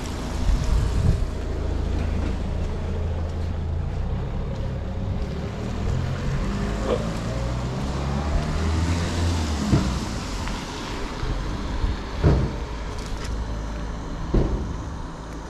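Wind buffeting a GoPro's microphone in the rain: a steady low rumble, with a few brief knocks now and then.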